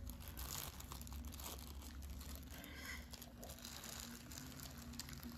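Small plastic zip-lock bag of diamond-painting drills crinkling faintly as it is handled, with scattered light clicks.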